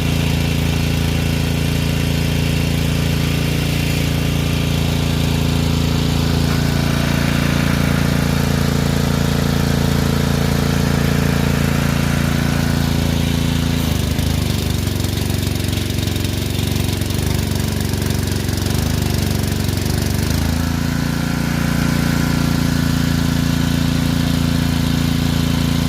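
Welding machine running with a steady low hum. Between about 14 and 21 s the hum turns rough and stuttering, as the machine comes under the load of a welding arc.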